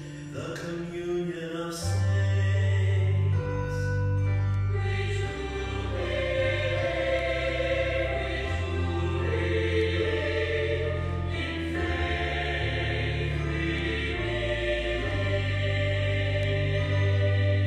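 Sacred choral music: a choir singing over long-held low accompanying notes that change every second or two.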